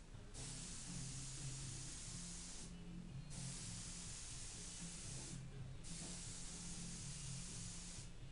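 Harbor Freight mini HVLP detail spray gun hissing as it sprays paint in passes, the air cutting off briefly about three times as the trigger is let go between strokes. A steady low hum runs underneath.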